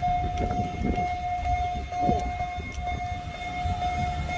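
Railway level-crossing warning alarm sounding one steady high tone as the crossing barrier lowers, signalling an approaching train. A low rumble runs underneath.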